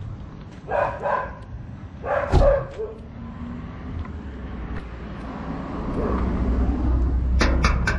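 A dog barking in short bursts, about a second in, twice around two seconds in, and again near the end, over a low rumble that grows louder in the second half.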